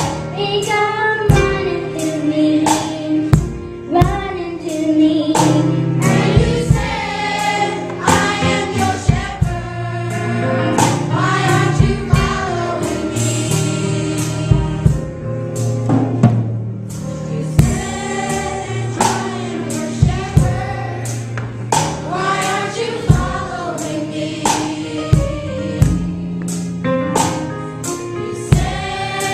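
Children's choir singing a gospel song together, over low held accompaniment notes and a steady beat.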